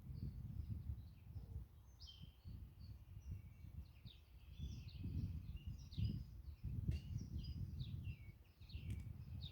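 Several small birds chirping outdoors: many short, quick chirps and twitters, overlapping and busiest from about two seconds in, over a low, uneven rumbling background noise.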